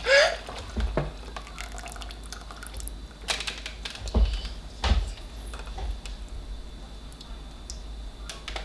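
Thick blended tomato soup pouring from a plastic blender jar into a stainless steel pot, with wet plops and drips and a few sharp knocks scattered through.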